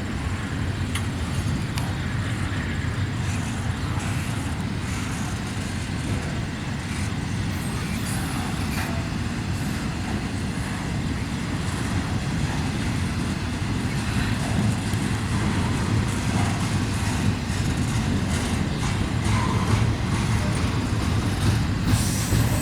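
Freight train cars, likely intermodal cars, rolling past at speed with a steady low rumble of wheels on the rails and faint scattered clicks.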